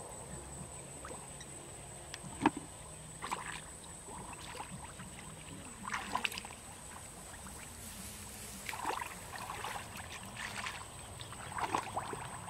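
Splashing and sloshing of shallow muddy water as a person wades and gropes for fish by hand, in several short bursts; a brief sharp splash about two and a half seconds in is the loudest.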